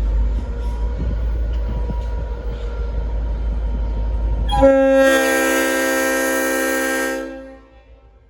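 Leslie RS5T five-chime air horn on a V/Line N class diesel locomotive sounding one long chord blast, starting a little past halfway and lasting about two and a half seconds before fading. Before it there is a loud low rumble from the train.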